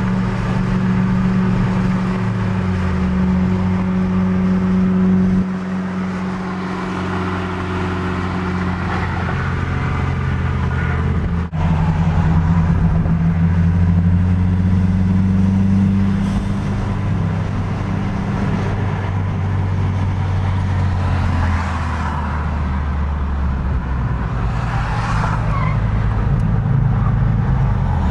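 Car engine drone and road noise heard from inside a car cruising on a highway. The engine note steps to a different pitch several times, with a very brief drop-out about eleven seconds in.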